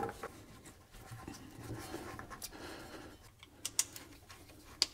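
Faint scraping and handling noise with a few sharp clicks, the loudest two close together about three and a half seconds in and another just before the end, as parts are handled in an engine bay.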